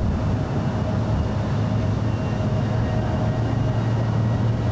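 Boeing VC-25A (Air Force One) jet engines running at low thrust as it lines up on the runway, heard from afar as a steady low hum with a faint higher whine above it.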